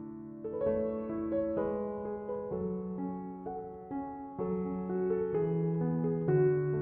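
Background music: slow, soft piano playing sustained notes and chords.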